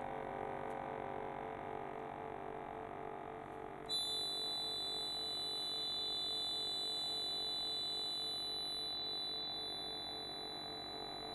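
Two concert accordions holding long, steady chords of close-lying notes that beat slowly against each other. About four seconds in, high, piercing notes enter sharply on top and are held.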